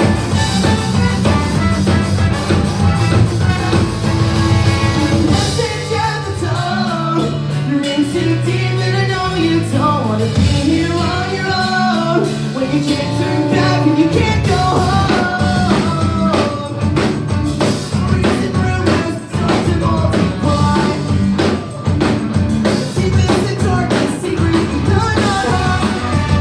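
A live band playing, with drums and guitars, and a singer's voice coming in about six seconds in.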